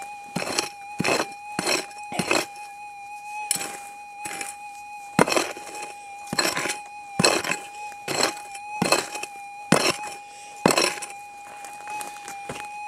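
Prospecting pick striking into compact gravelly soil, about a dozen hard chopping blows at a steady working pace, each with a scrape and rattle of loosened gravel. A steady high-pitched tone runs underneath.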